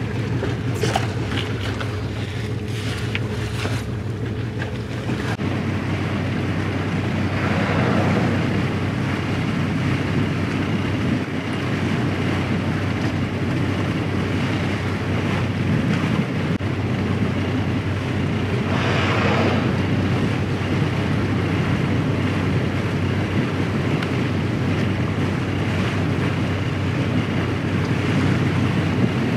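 A boat under way: its engine running with a steady low hum, mixed with the rush of water and wind noise on the microphone. Two brief louder hissing surges come about a quarter and about two-thirds of the way through.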